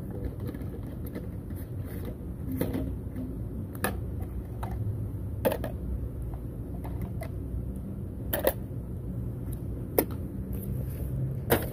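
Plastic gelato jars and small items being handled on a metal mesh table: about five sharp clicks and knocks a second or more apart, over a steady low rumble.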